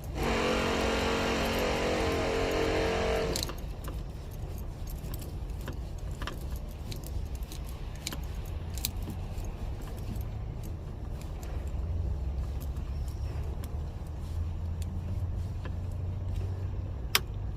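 Small metallic clicks and clinks of a T20 Torx driver turned by hand, loosening the bolt that holds the car door's exterior handle, over a steady low rumble. A loud, steady droning tone runs for the first three seconds or so, and a single sharper click comes near the end.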